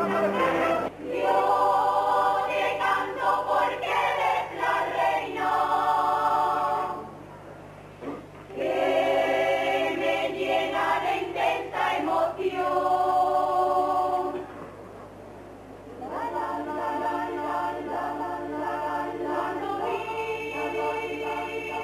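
A choir of nuns singing a hymn unaccompanied, in three phrases with short breaks between them, over a steady low hum.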